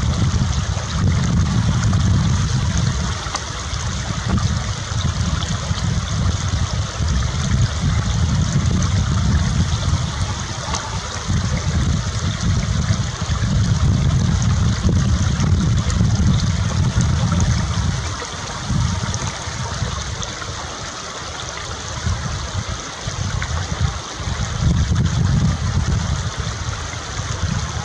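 Wind buffeting the microphone in uneven gusts, a loud low rumble that swells and falls away, over a steady rushing hiss.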